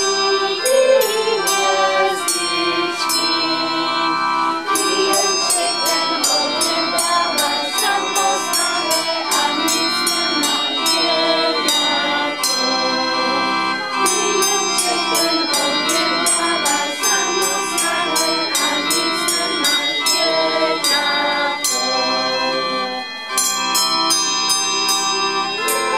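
A group of people singing a song together, accompanied by a small wooden chamber pipe organ and a stand of tuned bells struck in quick, ringing notes.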